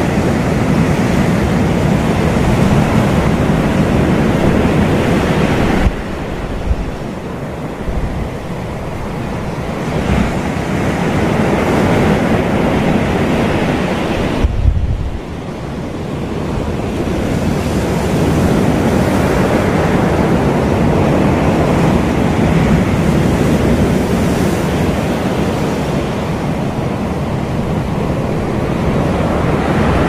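Small surf breaking and washing up a sandy beach: a continuous rush of water and foam, dipping suddenly about six seconds in and again about fifteen seconds in.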